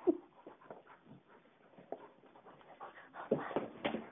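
Dog panting in quick, irregular bursts, getting louder and busier about three seconds in.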